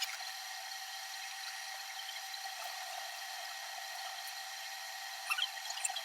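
A steady faint hiss with several thin, high whining tones held steady, and a few light clicks about five seconds in.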